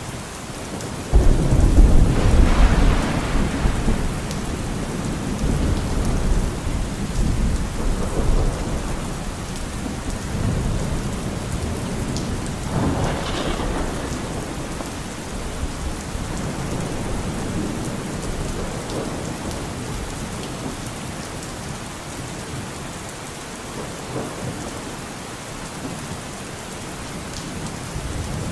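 Steady rain falling, with a rumble of thunder that breaks in suddenly about a second in and rolls on in waves, slowly fading.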